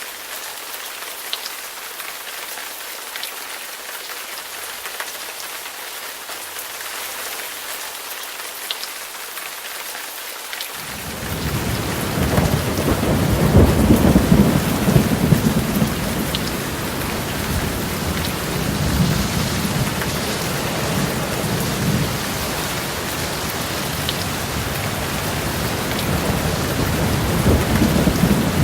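Steady rain hissing with a few sharp drips. About eleven seconds in, a long roll of thunder rumbles in suddenly. It is loudest a few seconds later and keeps rolling under the rain.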